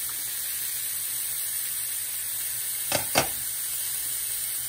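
Ribeye steak sizzling steadily as it sears in a hot pan on medium-high heat, its freshly turned side down. About three seconds in come two short clicks.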